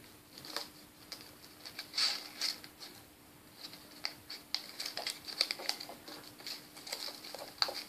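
A sheet of origami paper rustling and crinkling as it is folded and creased by hand. It comes as scattered short crackles and light clicks, with the biggest cluster about two seconds in.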